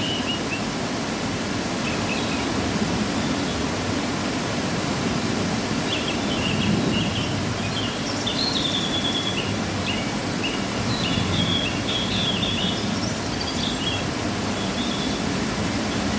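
Waterfall after rain, rushing steadily. Small birds chirp over it in short bursts, most from about six seconds in.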